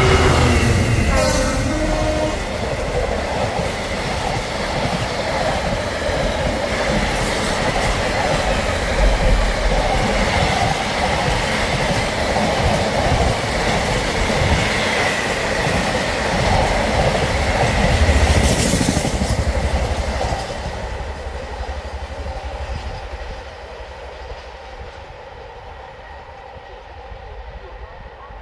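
A train passing close by, loud for about twenty seconds with a steady high whine running through it, then fading away as it leaves.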